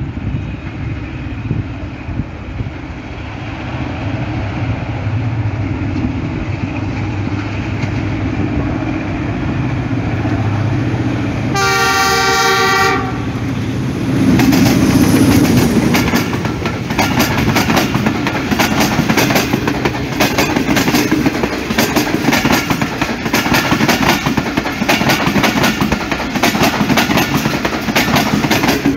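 Pakistan Railways diesel locomotive approaching with a rising engine rumble. About twelve seconds in it sounds its horn in one blast of about a second and a half, then passes close by. Its passenger coaches follow with a rapid, steady clickety-clack of wheels over the rail joints.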